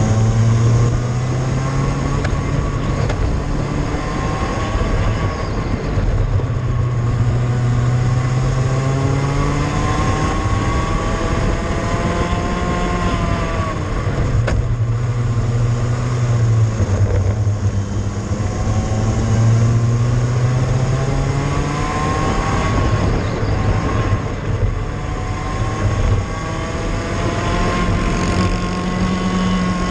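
Cadet go-kart's small single-cylinder engine, heard from the kart itself during a lap: its pitch climbs about four times as it accelerates out of the corners and drops back as it lifts off for the next bend.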